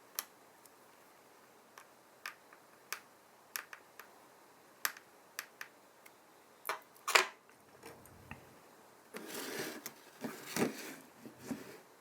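Small sharp clicks and taps of tools and parts being handled while repairing an iPhone 7, irregular and spaced apart, then a short rustling scrape about nine seconds in, followed by a few more clicks.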